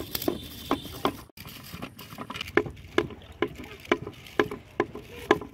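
Regular clicking, about two sharp clicks a second, from a homemade line spool turning on its stake axle, with a rod pressed against its ribbed face. The clicking is the sign of line paying out.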